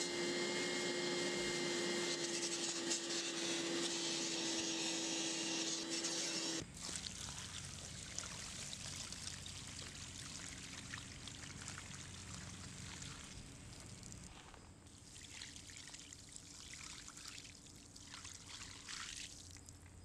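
Carpet extractor running as its clear nozzle is drawn over car carpet, a steady motor whine with suction hiss that cuts off abruptly about six and a half seconds in. After that, dirty extraction water is poured out of the recovery tank onto pavement, a quieter splashing trickle that fades near the end.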